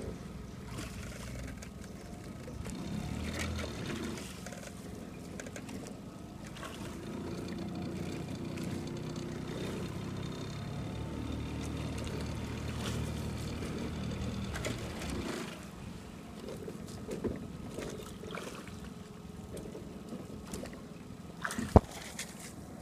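Small boat motor running steadily, with wind on the microphone and water noise; the motor sound falls away about two-thirds of the way through, and a single sharp knock comes near the end.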